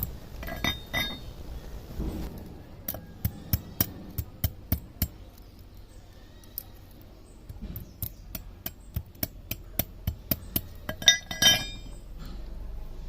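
Runs of quick, light metallic taps and clinks, several a second, as hanger wire is worked with hand tools, with a brighter ringing clink near the end.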